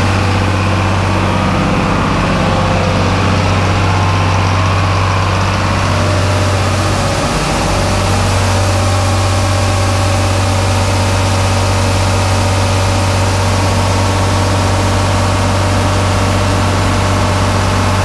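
Tractor engine and grain auger running steadily as shelled corn pours out of a gravity wagon's gate into the auger hopper.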